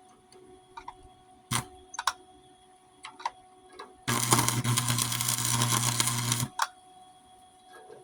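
Chicago Electric 220-volt welder striking an arc about four seconds in and crackling steadily for about two and a half seconds with a low hum, tacking a bolt into a gap in a cracked steel mower deck. A few scattered clicks come before it.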